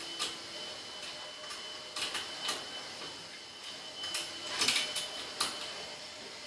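Hex key turning a small set screw on a metal towel-ring mounting post: irregular light metallic clicks and scrapes. The clicks bunch together about two seconds in and again around four to five seconds in.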